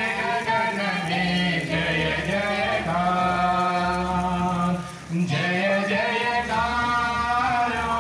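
A crowd singing a hymn together in long held notes, with short breaks between lines.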